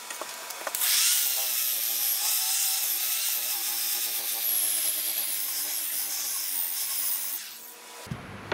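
EKCO EP6411 700 W electric rotary polisher, fitted with a sanding disc, running and sanding a pine board, played at five times speed so it sounds high and hurried. It starts about a second in and stops shortly before the end.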